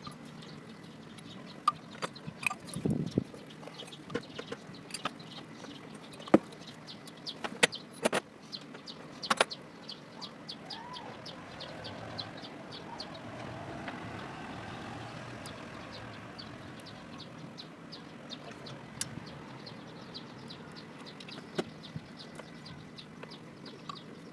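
Scattered metallic clicks and knocks of hand tools and parts handled during engine timing-belt work, with a dull thud about three seconds in.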